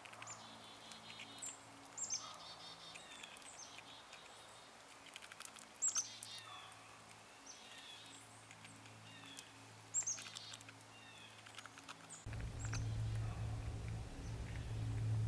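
Squirrels calling: short high chirps that sweep downward, some rapid chattering trills, and scattered clicks. About twelve seconds in, a louder low hum comes in and runs to the end.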